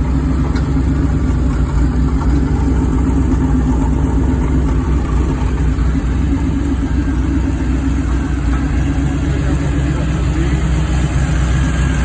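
1969 Chevrolet Impala engine idling steadily with an exhaust leak.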